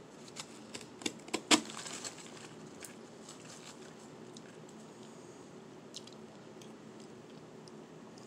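Powdery shaved ice being bitten and chewed close to the microphone: a quick run of crunches in the first two seconds, the loudest about a second and a half in, then a few soft crunches.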